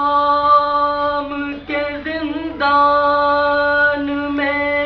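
A man's unaccompanied voice reciting a Salam, a Muharram devotional poem, in long held sung notes with a few short breaks for breath.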